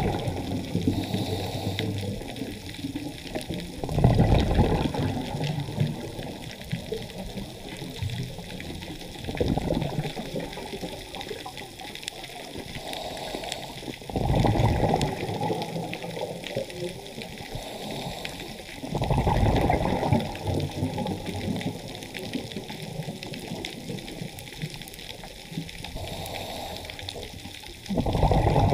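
Underwater scuba breathing: the diver's exhaled bubbles rush past the camera in bursts roughly every five seconds, with a steady faint hiss between them.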